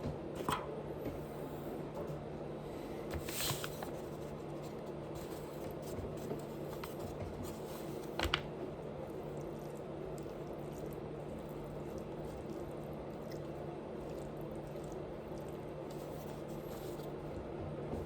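Person chewing food close to the microphone, with a few louder short mouth sounds about half a second, three and a half and eight seconds in, over a steady low hum.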